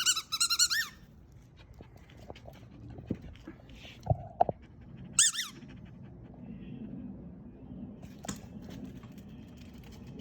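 German Shepherd whining in quick high-pitched bursts, once more about five seconds in, panting in between, with a couple of sharp knocks around four seconds in.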